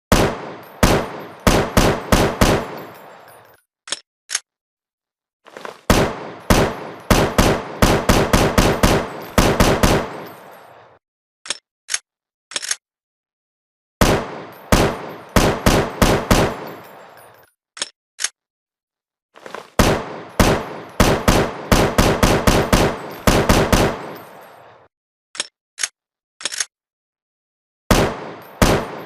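Sound effect of an AR-7 assault rifle firing: repeated bursts of automatic fire at about five shots a second, each lasting a few seconds, with single or paired shots in the gaps between them.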